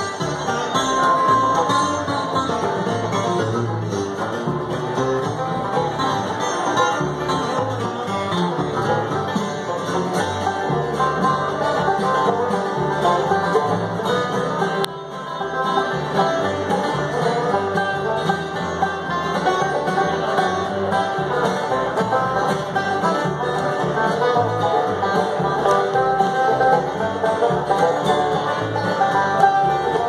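Live bluegrass band playing an instrumental break: banjo, fiddle, acoustic guitar and upright bass, with no singing.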